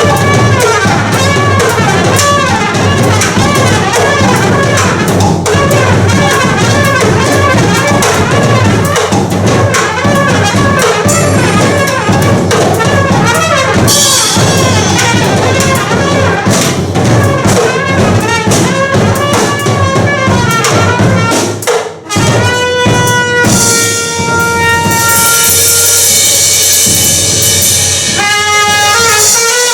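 Live band music with brass and a drum kit: a busy passage that breaks off briefly about three-quarters of the way through, then long held brass notes over cymbals.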